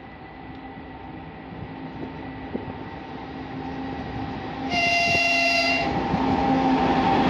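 2TE116 diesel locomotive approaching, its engine drone growing steadily louder, with a horn blast of about a second roughly five seconds in.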